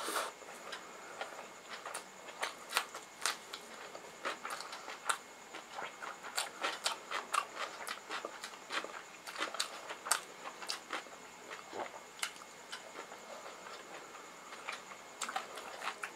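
Close-up eating sounds: chewing and lip smacks, with fingers mixing rice and curry on a metal plate, making a steady stream of irregular wet clicks and smacks.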